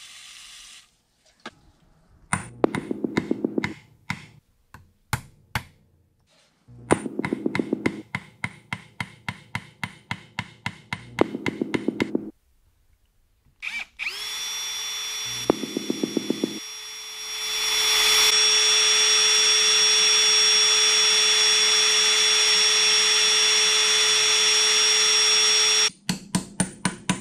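Bursts of quick metal-on-metal hammer blows on a punch, driving at stuck taper pins in a South Bend lathe apron. About halfway through, an electric drill starts and runs steadily with a high whine for about ten seconds, drilling out a stuck pin. A few more hammer blows follow near the end.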